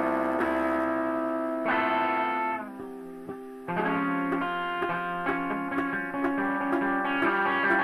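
Free noise rock with electric guitar through effects: held, ringing chords, then from about four seconds in a busier run of quick picked notes.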